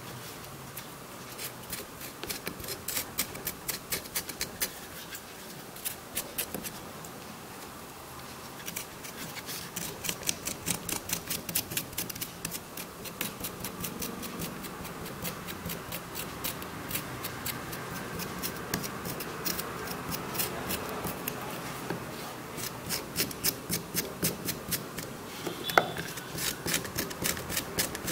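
A knife scraping the skin off a piece of ginger root in quick repeated strokes.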